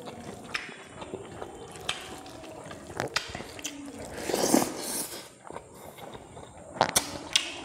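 Eating by hand close to the microphone: wet finger clicks and squelches of rice being mixed with pork curry gravy, then a mouthful of rice pushed in about four seconds in, the loudest moment, followed by chewing and wet mouth clicks.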